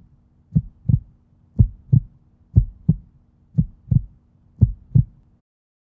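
Heartbeat sound effect: five double thumps, about one pair a second, over a faint steady low hum, stopping shortly before the end.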